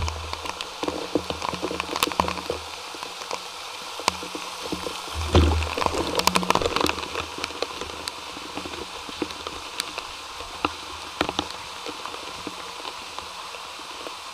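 Water rushing, splashing and dripping inside a storm-drain pipe, with many scattered sharp drips and knocks. Two low rumbling bursts stand out, one at the start and one about five seconds in.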